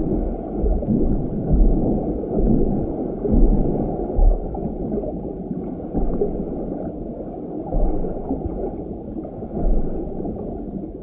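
Muffled underwater water ambience: low gurgling and bubbling with irregular dull low thumps, and no treble.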